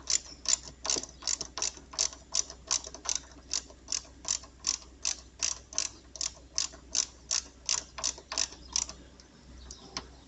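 Ratchet wrench clicking in a steady rhythm, about three clicks a second, as it tightens the motorcycle's chassis ground bolt; the clicking stops about nine seconds in.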